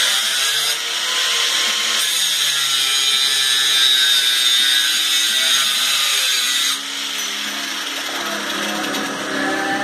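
Handheld power tool with an abrasive cutting wheel cutting steel, a loud high whine whose pitch wavers as it bites; the whine drops away about seven seconds in.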